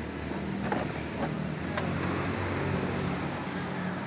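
A few light clicks and knocks of the scooter's plastic storage box and body panels being handled, over a steady low hum.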